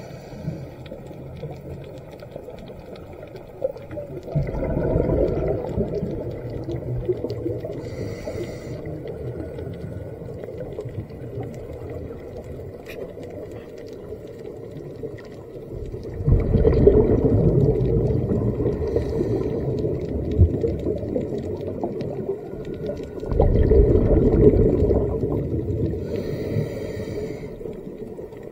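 Scuba diver breathing through a regulator, heard underwater: three exhalations release loud bursts of bubbles, each lasting two to three seconds. The first comes about four seconds in, the next two near sixteen and twenty-three seconds. Between them are fainter hisses as the diver inhales.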